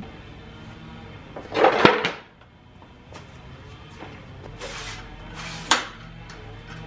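Clatter and knocks of a portable table saw being handled: a loud rattling clatter about a second and a half in as it is lifted, then scraping and a sharp knock near the end as it is set down on concrete.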